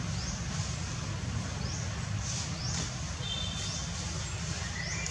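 Outdoor ambience: a steady low rumble with repeated short high chirps, about two a second, and a few brief thin calls in the second half.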